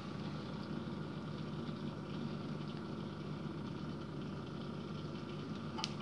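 Dishwasher drain pump running on and on with a steady hum, with a single click near the end. The pump won't stop even with no water to drain, possibly because the flood float switch has water under it.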